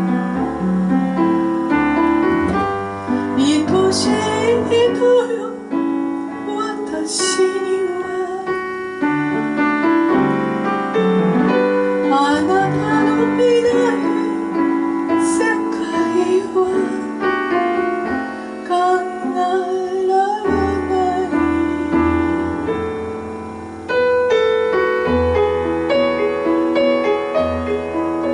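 Chanson piano accompaniment playing steadily, with a woman's voice singing over it at times.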